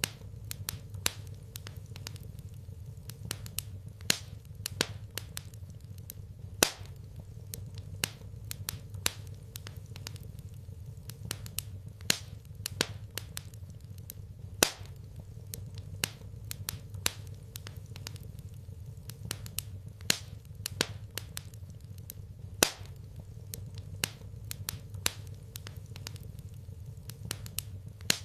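Fire in a fireplace crackling, with irregular sharp pops, some much louder than others, over a steady low rumble.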